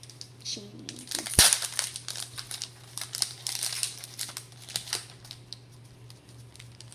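Foil Pokémon card booster pack wrapper crinkling and crackling as it is handled and opened, with one sharp, louder snap about a second and a half in.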